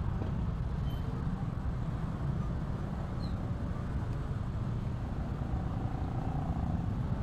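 Motor scooter engines running slowly in a dense crush of motorbikes: a steady low hum.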